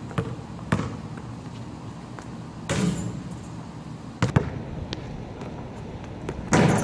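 A basketball bouncing on a concrete court: a handful of separate thuds a second or more apart, with two louder ones about three seconds in and near the end.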